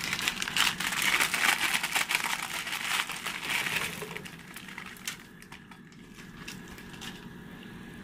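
Plastic instant-noodle packet crinkling loudly as it is handled and the dry noodle blocks are tipped out into a pot of water. The crinkling dies away about four seconds in, leaving a quieter steady hiss.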